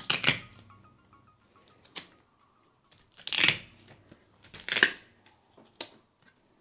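Jigsaw puzzle pieces being handled and slid across a tabletop: three short scraping rustles, at the start, about three and a half seconds in and just before five seconds, with a few light clicks between them. Soft background music plays underneath.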